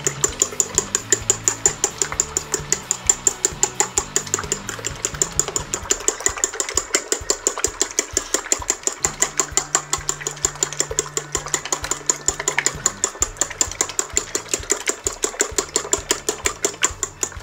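Fork beating eggs in a bowl: rapid, even clinks of the fork against the bowl, about five a second, that stop abruptly at the end.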